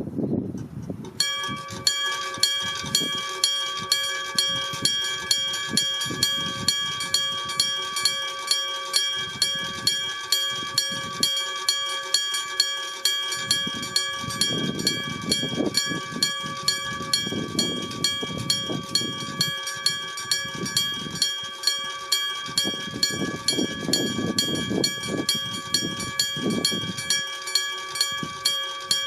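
Iron gong-type electric level-crossing warning bell (Kyosan, 1970) starting up about a second in and then striking steadily, about two strokes a second, each stroke ringing on. Low rumbling swells up beneath it several times in the second half.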